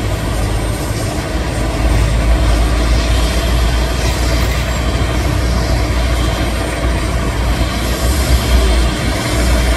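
Steady, loud low rumble with a broad hiss from jet aircraft at an airport apron, unbroken and without distinct events.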